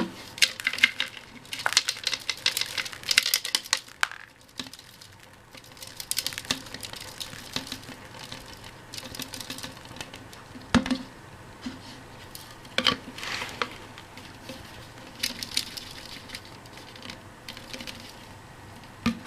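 Dust, grit and small bits of cast iron clicking and pattering out of a homemade cyclonic vacuum's dust container as it is emptied. The debris comes in several bursts of rapid clicks with pauses between, and there are a few louder knocks near the middle.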